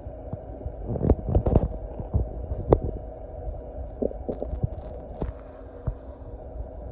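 Irregular muffled low thumps and a few sharp clicks over a steady low rumble and hum, busiest in the first half.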